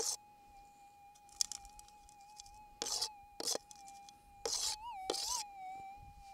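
Minelab SDC 2300 metal detector's steady threshold hum, with dirt and gravel rattling in a plastic scoop held over the coil in several short bursts. Twice near the end the tone briefly rises in pitch: a faint target response from the scoop's contents.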